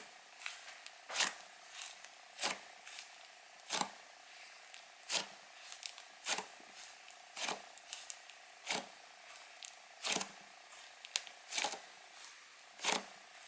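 Clay slime being squeezed and pressed by hand, giving short squelching pops and crackles, the strongest about once every second and a bit, with smaller ones between.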